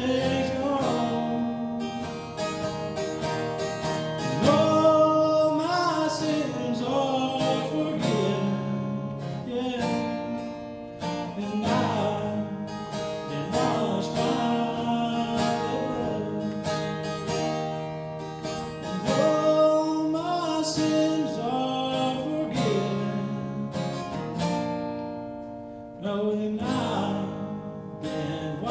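A man singing while strumming an acoustic guitar, the steady chords and his voice running together through the song.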